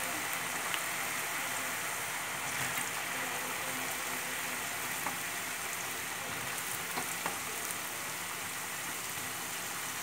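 Purple yam sticks deep-frying in hot oil: a steady sizzle of bubbling oil, with a few faint crackles.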